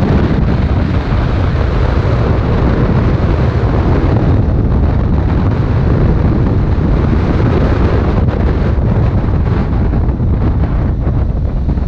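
Wind rushing over the microphone of a moving motorcycle, loud and steady, with the motorcycle's engine and road noise underneath.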